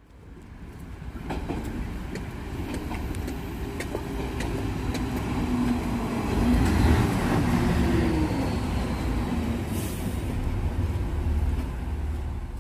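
DSB IC3 (litra MF) diesel multiple unit pulling into the platform and slowing. A low diesel rumble builds as it approaches, with scattered sharp clicks from the wheels and a short hiss about ten seconds in.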